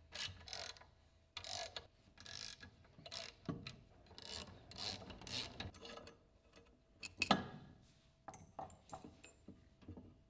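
Hex socket wrench loosening the retaining bolts of a truck air-dryer unit's four-circuit protection valve in a run of short ratcheting strokes, about two a second. Then comes a sharp metal knock, followed by a few lighter clicks as the cast valve body is handled and pulled off.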